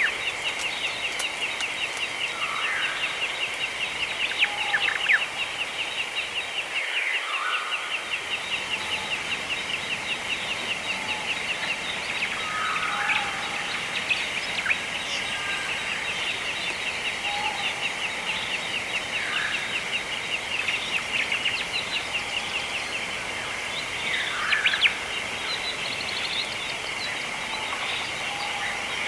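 Wild birds calling with short scattered chirps over a continuous high, fast-pulsing trill.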